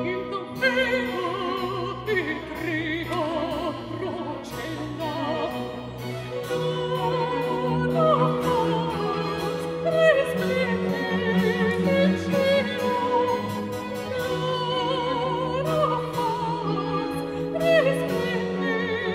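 Soprano singing a baroque motet with a wide vibrato, accompanied by a baroque string orchestra with a sustained bass line and harpsichord continuo, ringing in a reverberant church.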